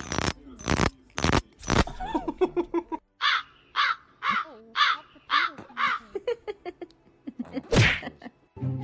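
A few short hissing strokes, then a small long-haired dog giving six short, hoarse, crow-like calls about two a second, followed by one louder burst near the end.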